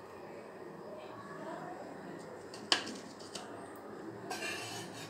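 Metal spatula against a flat pan and plate as a cooked pancake is lifted off and set down: one sharp clink a little past the middle, a lighter tap, then a short scrape near the end.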